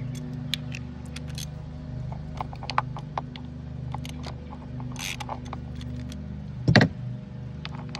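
Irregular light metallic clicks and taps of hand tools and small parts being handled during work on an outboard's switch boxes, over a steady low hum. One louder knock comes near the end.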